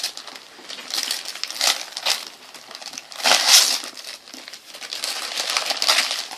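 Wrapping paper being torn and crinkled as a present is unwrapped, in several bursts of ripping and rustling.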